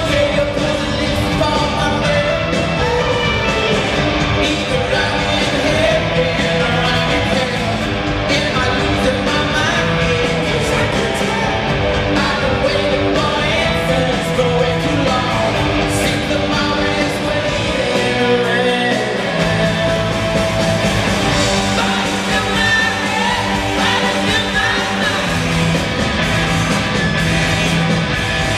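Live rock music: a band playing guitars and drums with a lead singer.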